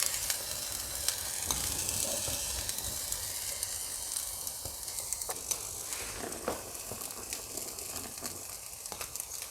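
Chickpea-flour batter sizzling gently in a frying pan greased with coconut oil on low heat: a steady soft hiss with scattered small pops and crackles.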